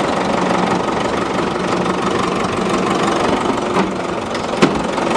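An engine runs steadily under load while a chain pulls the car over onto its side, with a couple of sharp clanks about four seconds in.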